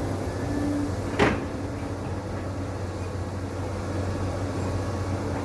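Caterpillar 320D L excavator's diesel engine running steadily, with a single sharp knock about a second in.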